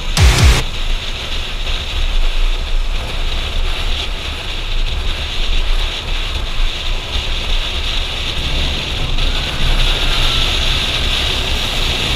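Wind rushing over a helmet-mounted microphone on a moving Kawasaki motorcycle, with low engine and road rumble underneath. A burst of background music cuts off about half a second in.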